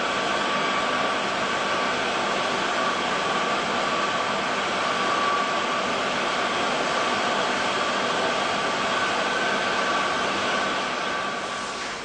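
Metal lathe running, turning a workpiece: a steady hiss with a steady whine, dying away near the end.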